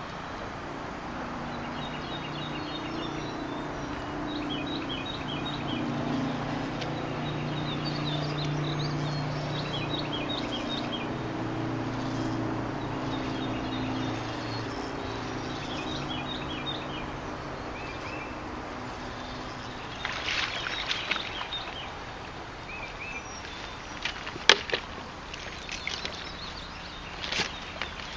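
A small songbird repeating a short, high chirping phrase every second or two over a low steady drone. Near the end come a cluster of sharp clicks and one loud knock.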